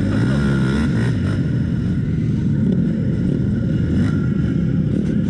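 KTM 450 SX quad's single-cylinder four-stroke engine running under throttle as it is ridden, climbing in pitch in the first second and then rising and falling with the throttle.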